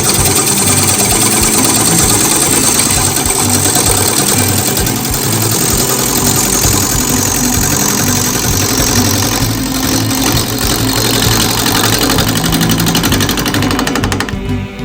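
Wood lathe spinning a chunk of oak while a turning tool cuts into it: a loud, steady, rough cutting noise with the lathe's hum under it. It stops near the end.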